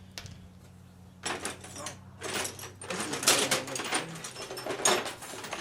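Hand tools and small metal parts clinking and rattling as they are handled, in several irregular bursts, the loudest about three seconds in and again near the end, over a low steady hum.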